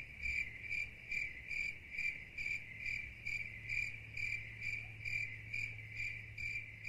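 A single cricket chirping steadily at one pitch, a little over two chirps a second, with a faint low hum underneath.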